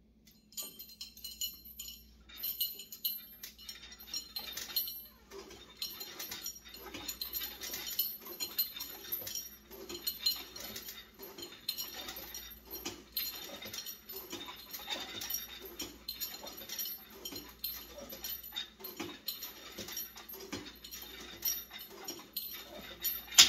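Home-gym lat pulldown machine worked through repeated reps: the weight-stack plates and the chain on the pulldown bar clink and jingle again and again as the stack is lifted and lowered.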